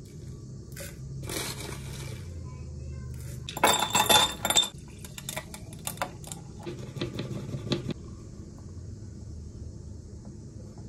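Clattering and clinking of dishes and cutlery, loudest in a dense cluster about four seconds in, with a few lighter clinks later, over a low steady hum.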